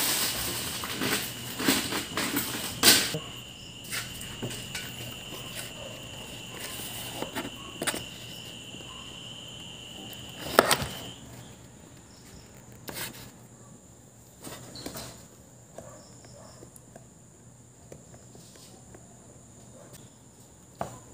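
Hand tools cutting the relay's supply trace on a subwoofer amplifier circuit board: scattered clicks and scrapes, the sharpest about 3 s and 11 s in. A steady high-pitched tone runs underneath and stops about halfway through.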